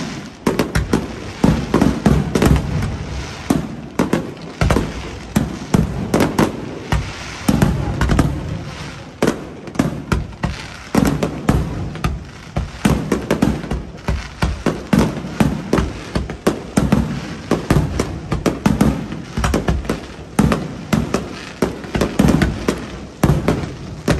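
Aerial fireworks shells bursting one after another, a dense run of sharp bangs several a second over a low rumble.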